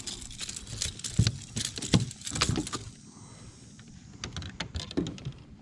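Irregular clicks, knocks and rattles as a small trout is handled and unhooked on a kayak, the fish squirming against the lure's hooks.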